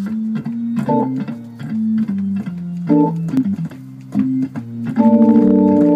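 Hammond XK-3c organ being played: a moving line of low held notes with short chords about one and three seconds in, then a full chord held from about five seconds.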